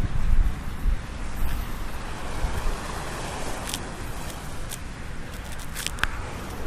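Steady wash of ocean surf with wind buffeting the microphone, and a few short clicks in the second half.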